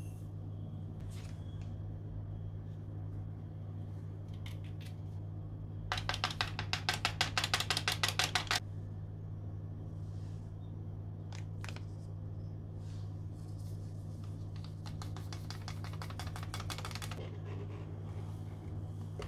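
A kitchen utensil beating rapidly against a mixing bowl in two spells of quick clicking, about ten strokes a second, with a few single knocks between, over a steady low hum.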